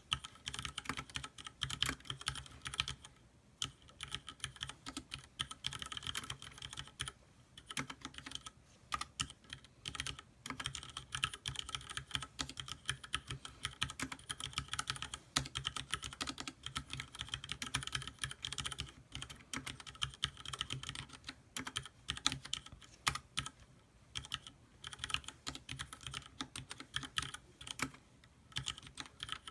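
Typing on a Leopold FC660M mechanical keyboard with Cherry MX Red linear switches and PBT keycaps: a fast, continuous run of keystrokes broken by a few brief pauses.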